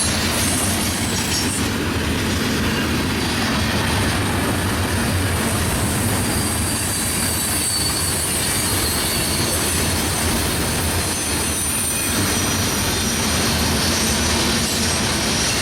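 Florida East Coast freight train rolling past, a steady rumble of wheels on rail with high-pitched wheel squeal from the curve.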